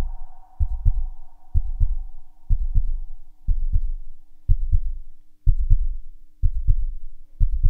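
End-screen background sound: a low thudding double beat about once a second, like a heartbeat, over a steady low hum. A higher tone fades out in the first second or two.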